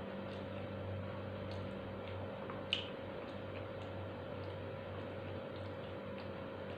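Eating sounds: soft, irregular small clicks of chewing and picking at food by hand, one sharper click near the middle, over a steady low electrical hum.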